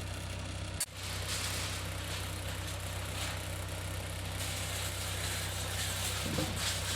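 Tracked backhoe's engine idling steadily, with a rattly noise over the low hum and a sharp click about a second in.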